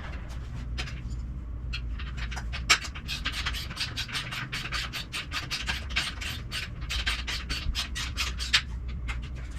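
Ratcheting socket wrench clicking as treadmill frame bolts are tightened: a few scattered clicks, then a fast, even run of about five clicks a second for several seconds.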